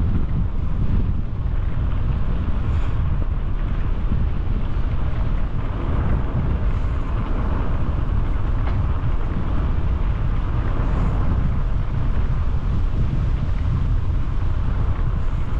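Wind rushing over a helmet-mounted GoPro's microphone while cycling: a steady, loud low rumble with a lighter hiss above it.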